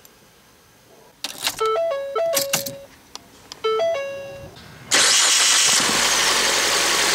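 A few clicks at the ignition and two short electronic chime melodies from the dashboard. About five seconds in, the 2015 Ford Fiesta's 1.6-litre Duratec four-cylinder engine is heard running at idle under the open hood, just started after sitting and warming its oil. It is loud and steady, with a lot of hiss.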